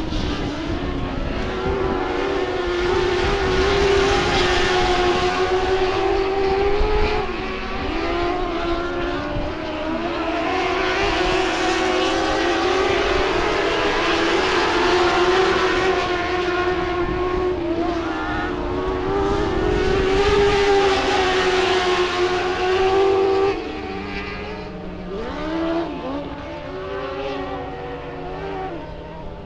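A dwarf car's motorcycle engine running hard on a clay oval, its pitch rising and dipping every few seconds as it comes off and into the turns. Near the end the race engine fades and a lower, steady engine note is heard under it.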